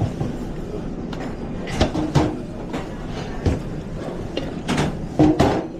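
Commercial kitchen ambience: a steady background hum with several short knocks and clatters of kitchen gear.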